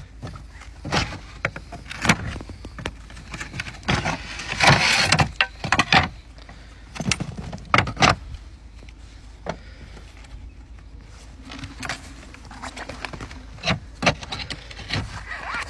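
Roof slates clinking and knocking against each other and the battens as they are handled, a string of sharp clicks with a longer scrape about five seconds in.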